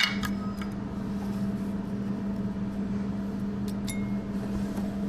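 A steady low machine hum at one pitch, with a few light clicks and taps about half a second in and again near four seconds.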